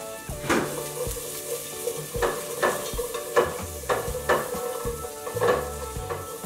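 Chopped onion sizzling in olive oil in a pot on a gas burner, stirred with a spoon that scrapes the pot bottom in short strokes about twice a second as the onion starts to caramelize.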